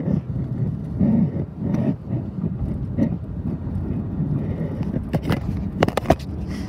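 Steady low rumble of a car on the road, heard from inside it, with irregular rubbing and a few sharp clicks about five to six seconds in.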